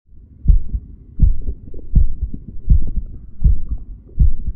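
Human heartbeat picked up by a DIY electronic stethoscope (stethoscope chest piece with a microphone) at the mitral valve point: a steady lub-dub, about six beats, each a pair of dull low thumps with the first of the pair the louder.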